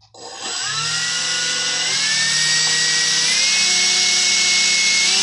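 Two 70mm 12-blade electric ducted fans start up and run with a high whine. The pitch steps up a few times, about two and three seconds in and again near the end, as the throttle is raised.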